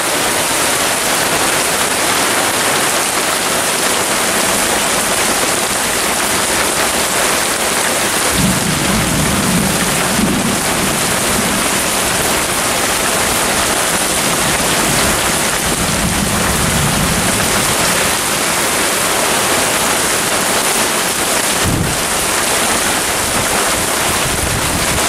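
Heavy rain pouring steadily. Low thunder rumbles for about ten seconds starting about a third of the way in, and there is a brief sharp thump near the end.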